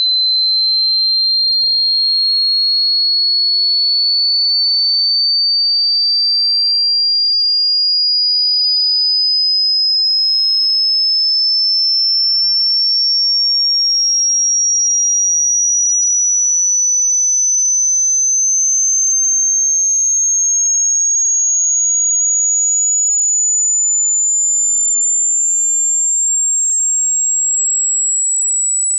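A pure sine-wave test tone from a hearing test, held loud and steady while it sweeps slowly and evenly upward in pitch from high to very high.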